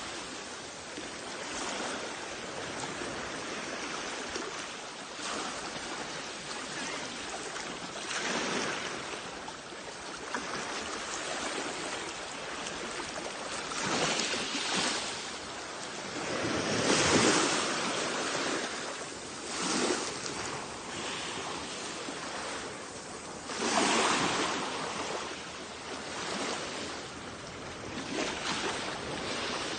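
Sea waves breaking on a shore: a steady wash of surf with louder swells every few seconds as waves come in, the loudest about halfway through.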